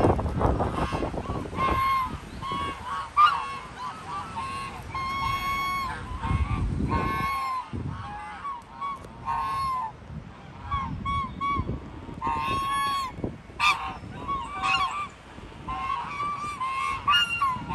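Domestic geese honking again and again, a run of short calls with a few longer ones among them.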